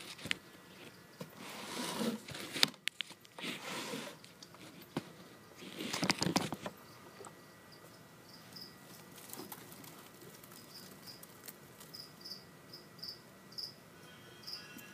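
Rustling of leaves and handling noise in the first half. Then a cricket chirping in short high chirps repeated every half second or so, from a little past the middle.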